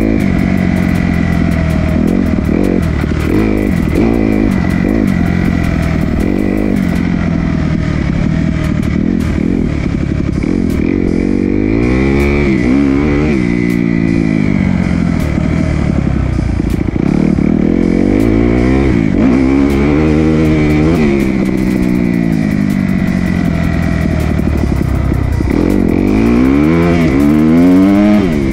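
2019 Kawasaki KX250 four-stroke single-cylinder dirt bike engine being ridden hard, its pitch rising and falling again and again as the throttle is opened and shut through the gears. The loudest climb comes near the end.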